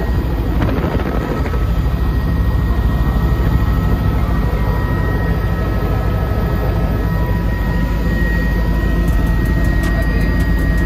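Helicopter running in flight: a loud, steady drone with a few constant high whining tones over it.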